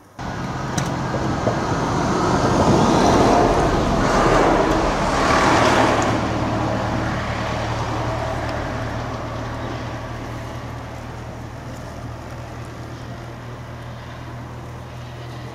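Road traffic: a motor vehicle passes close by, its noise swelling to a peak a few seconds in and then slowly fading, over a steady low engine hum.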